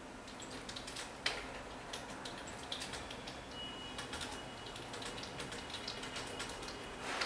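Handling noise from a sneaker being held and turned close to the microphone: scattered light clicks and taps, one sharper click about a second in, and a brief rustle near the end.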